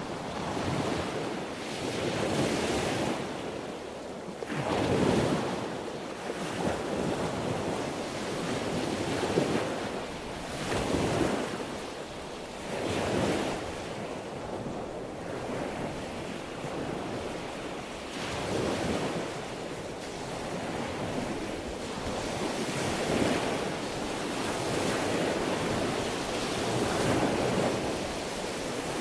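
Sea waves breaking and washing on the shore, a continuous rush that swells and fades in surges every few seconds.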